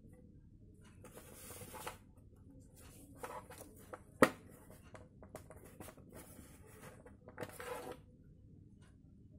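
Plastic side fairing of a Yamaha Jupiter being handled on a table: rubbing and scraping of the plastic in short stretches, with one sharp knock about four seconds in.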